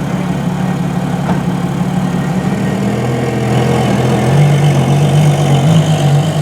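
Ferrari LaFerrari's 6.3-litre V12 idling steadily, its note shifting slightly and growing a little louder about four seconds in.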